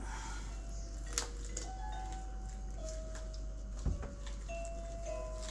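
Soft background music: a simple melody of held, bell-like notes, with a sharp click about a second in and a soft thump near four seconds.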